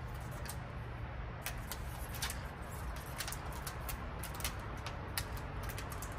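Irregular sharp clicks and snips of a hand cutting tool working on a jackfruit branch, girdling it for air layering, over a low steady background rumble.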